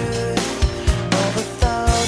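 Background music with a steady drum beat under sustained instrument notes.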